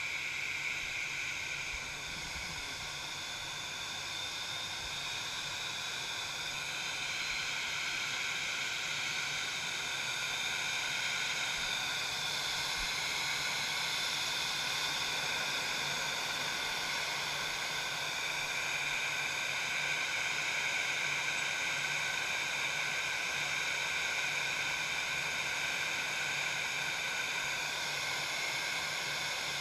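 Airbus A319 jet engines running at idle on the ramp: a steady, rushing hiss with a high whine. It gets a little louder over the first several seconds, then holds steady.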